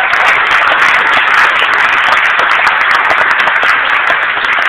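Audience applauding: many hands clapping, dense and loud.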